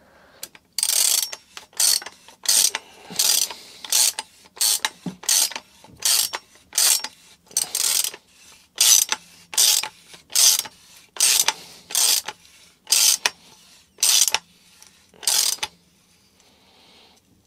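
Hand socket ratchet clicking through about twenty short back-and-forth strokes, roughly one and a half a second, stopping shortly before the end. It is turning a castle tool to thread the damper into a Headshok fork's air cylinder.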